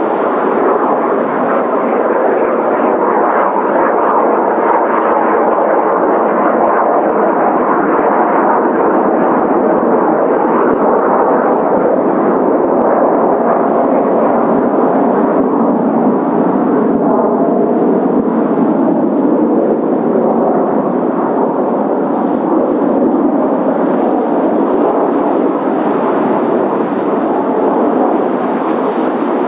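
Formation of Kawasaki T-4 jet trainers flying over, their twin turbofan engines making a loud, steady rush of jet noise that holds without a break.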